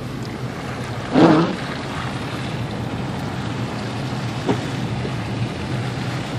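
Steady low rumble and hum of a car driving, heard from inside the cabin, with one short, louder sound about a second in.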